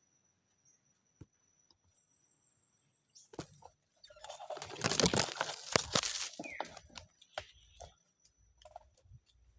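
Leaves and twigs rustling and crackling for about two seconds in the middle, over a steady high-pitched hiss, with a few light snaps after.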